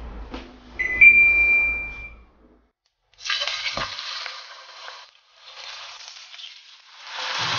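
A Midea T65 range hood gives one steady electronic beep over a low fan hum as it switches on. From about three seconds in, a beef steak sizzles and crackles in a hot oiled frying pan, the sizzle coming in spells and growing louder near the end as the steak is turned.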